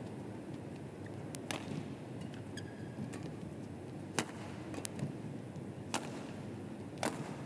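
Badminton rackets striking the shuttlecock back and forth in a rally: sharp cracks about once a second over a steady hum of arena noise, with a brief squeak about three seconds in.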